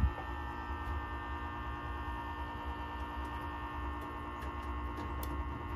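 Steady electrical mains hum from the signal bungalow's energized equipment, made up of many steady tones. A single sharp click comes right at the start.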